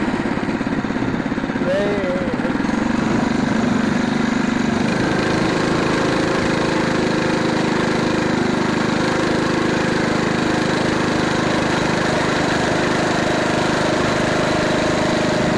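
Small gas engine of a Phatmoto Rover motorized bicycle running at low speed, then picking up about five seconds in as the bike pulls away and settles into a steady cruising note.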